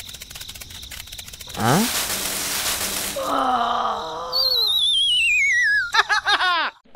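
Edited-in cartoon-style sound effects. A short rising sweep with a hiss comes about a second and a half in, then a wavering wail, then a long falling, warbling whistle that ends in a run of quick descending chirps and cuts off suddenly.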